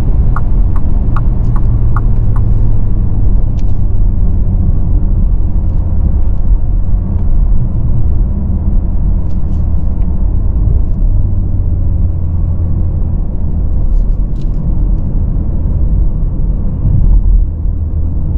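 Cabin sound of a Bentley Continental GT Speed's W12 coasting down from motorway speed: a steady low rumble of engine and road noise. A light, regular ticking, about two and a half a second, runs through the first two seconds or so.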